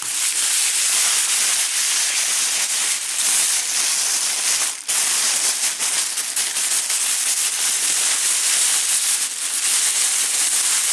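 Packing material being handled and unwrapped from a shipped box of locks: a loud, steady crinkling and rustling with a brief pause about five seconds in.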